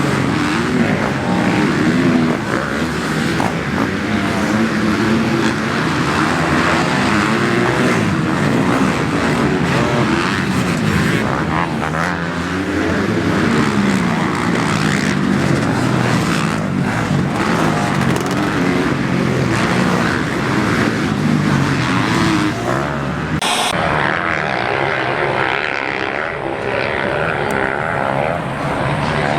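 Motocross bike engines revving hard, several overlapping, their pitch rising and falling again and again as they race. The sound changes abruptly about 23 seconds in.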